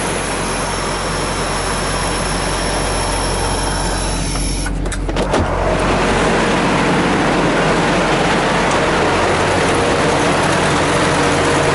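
Semi truck's diesel engine idling steadily under an even hiss. About five seconds in, a few sharp clicks as the cab door is unlatched and opened, after which the hiss is brighter and a little louder.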